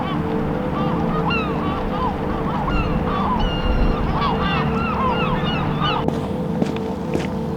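A flock of geese honking, many short calls overlapping, breaking off suddenly about six seconds in. A few sharp clicks follow near the end.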